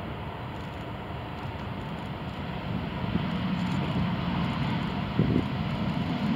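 Boeing 787-8 jet engines and airframe on the landing rollout, a steady rumbling roar that grows louder about halfway through as the airliner draws level, with gusts of wind buffeting the microphone.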